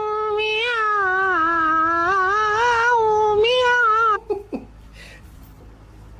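A cat giving one long, drawn-out yowl that wavers in pitch, breaking off about four seconds in with a short falling cry.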